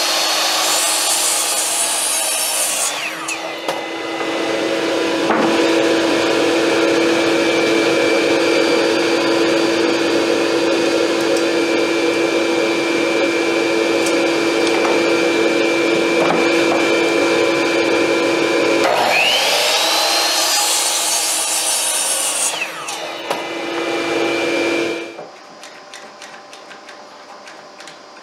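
Electric power tool working wood, its motor running at a steady pitch for long stretches. It winds up again with a rising whine near the end and then stops.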